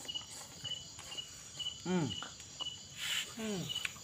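Crickets chirping at night, short chirps repeating about three times a second over a steady high insect drone. Twice a man lets out a short voiced sound that falls in pitch, and there is a brief hiss about three seconds in.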